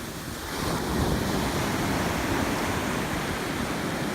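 Ocean surf washing onto the beach, with wind buffeting the microphone. It grows a little louder about half a second in.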